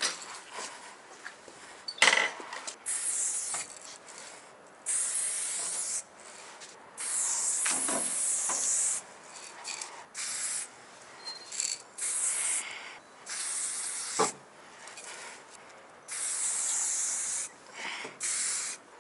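Aerosol spray paint can hissing in repeated short bursts, each half a second to two seconds long, as graffiti lines are sprayed. There is a sharp knock about two seconds in.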